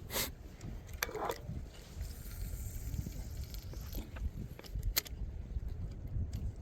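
Wind buffeting the microphone in an uneven low rumble, with a few sharp clicks and scrapes: one at the start, a cluster about a second in, and another about five seconds in.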